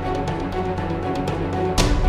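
Background music with held tones and a drum beat; a loud drum hit near the end, after which the music grows louder.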